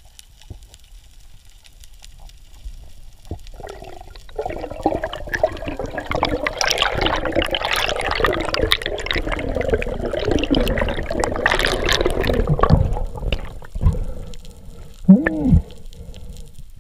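Water sloshing and bubbling close to the microphone, building up about four seconds in, full of short wavering gurgles, and easing off near the end with one last falling gurgle.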